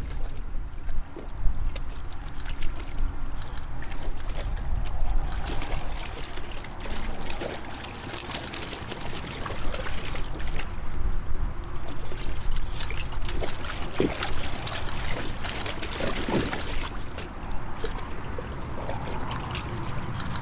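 Two soft-coated wheaten terriers wading and splashing in a shallow plastic kiddie pool: water sloshing and trickling, with irregular small splashes, busiest in the middle.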